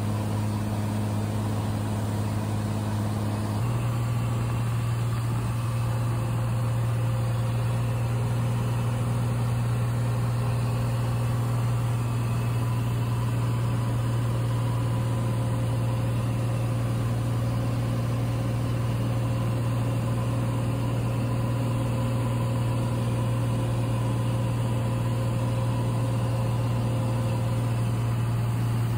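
Steady drone of a Cessna 182's piston engine and propeller in cruise flight, heard inside the cabin. The drone's pitch shifts slightly about three and a half seconds in.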